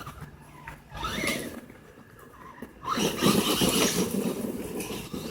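Electric Traxxas E-Maxx RC monster truck driving in two spurts: its motor whine rising in pitch as it accelerates, with tyre noise on the ground. The second spurt, from about three seconds in, is longer and louder.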